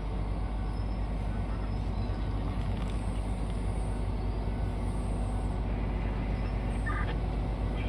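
Heavy diesel engines of mining machinery running: a steady low drone that holds without change.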